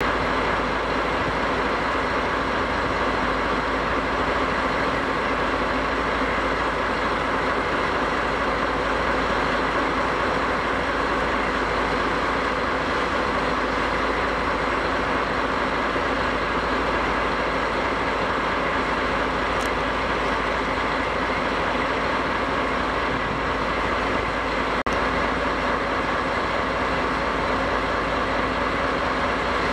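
DD51 diesel-hydraulic locomotive idling steadily at a standstill, its twin V12 diesel engines giving a constant hum.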